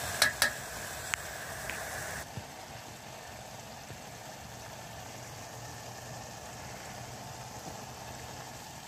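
Minced lamb sizzling and bubbling steadily in a pot on a camping stove, with a few sharp knocks of a utensil against the pot in the first two seconds.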